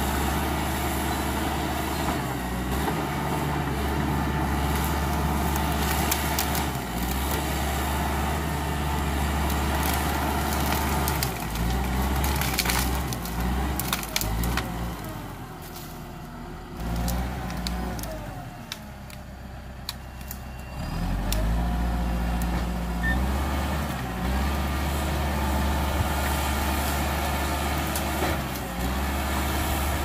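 Cat D5K XL bulldozer's diesel engine working under load as it pushes through felled trees and brush, its pitch rising and falling. About halfway through it drops back toward idle for several seconds, then revs up again. Sharp cracks and snaps of branches breaking under the machine sound over it.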